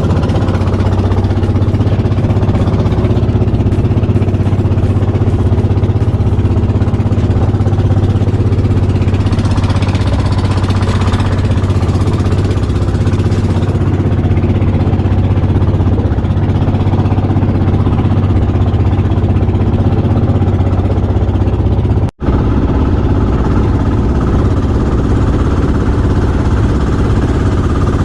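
Small fishing boat's engine running steadily at cruising speed, a loud, even low drone, with a split-second dropout about three-quarters of the way through.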